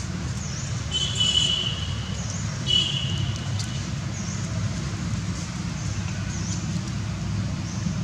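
Two short high-pitched animal squeaks, about a second and a half apart, over a steady low rumble.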